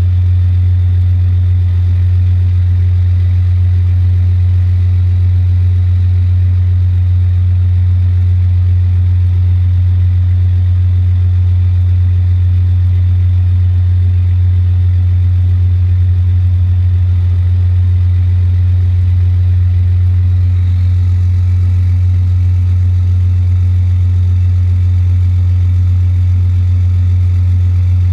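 Dodge service truck's engine idling steadily with the PTO engaged, driving the truck-mounted air compressor as it pumps up tank pressure; a loud, even low drone.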